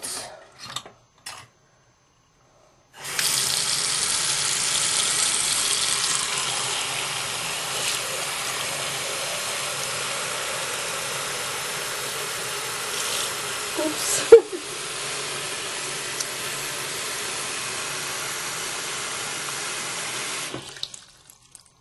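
Bathroom sink tap running steadily, water pouring into the basin. It starts about three seconds in and shuts off near the end. About two-thirds of the way through there is a single sharp knock, and after it the flow runs a little quieter.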